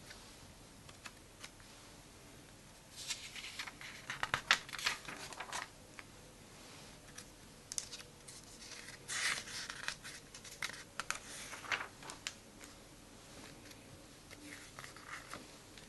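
Glossy comic book pages being turned and smoothed flat by hand: three bursts of paper rustling and crinkling with quiet stretches between.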